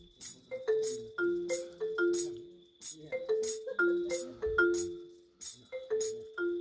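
Marimba played with mallets: a repeating figure of a few mid-range notes, about two to three strikes a second, each wooden bar ringing briefly and fading.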